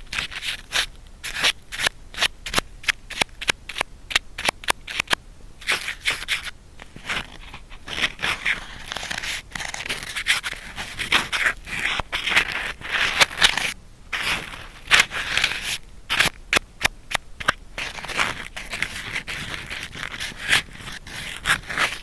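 Ear-cleaning tool scratching and rubbing at a microphone's ear in quick short strokes, a few a second, thickening into denser, continuous scraping around the middle.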